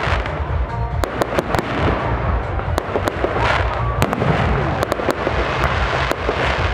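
Fireworks display: large-calibre aerial shells bursting overhead in rapid, irregular succession, a string of loud sharp bangs over a steady low rumble.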